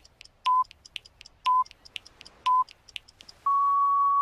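Quiz countdown-timer sound effect: rapid clock-like ticking with a short electronic beep once a second, ending in one longer, slightly higher beep that marks time up.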